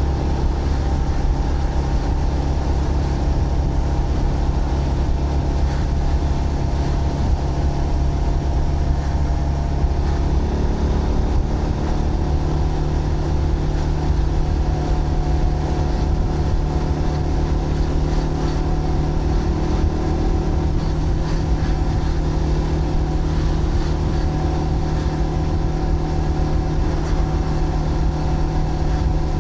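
Zontes GK 125 single-cylinder 125 cc motorcycle engine running steadily under way, its pitch shifting to a new steady note about ten seconds in.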